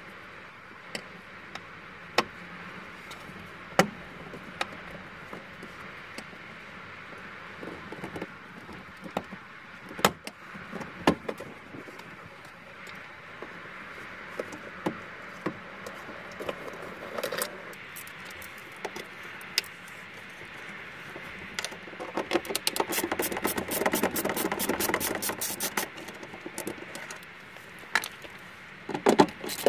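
Hand-tool work on a car door: scattered sharp clicks and knocks of a screwdriver, fixings and the plastic inner door carrier being undone and lifted away. About two-thirds of the way through comes a louder stretch of fast, dense clicking and rattling lasting several seconds.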